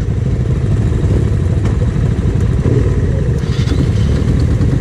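Motorcycle engines idling close by, a steady low rumble.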